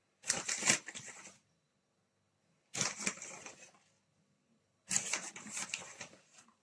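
Three bursts of crackling, rustling handling noise, each a second or so long, with quiet pauses between them.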